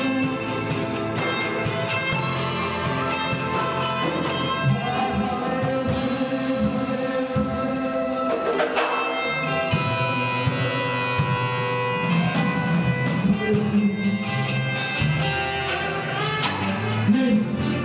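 Worship music with singing over instruments and a steady beat.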